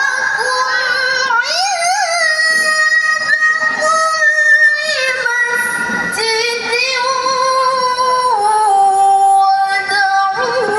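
A woman's voice chanting melodic Quran recitation (tilawah). She holds long notes and winds through ornamented, wavering turns between pitches, ending on a long steady note.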